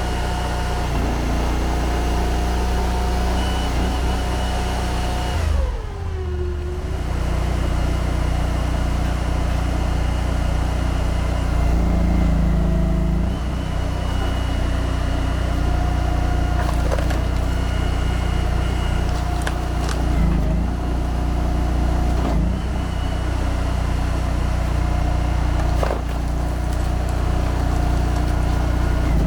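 Honda GX800 V-twin engine of a box-wedge log splitter running steadily. Its pitch sags about six seconds in and dips again a few times as the hydraulics take load. A few short sharp knocks are heard later on.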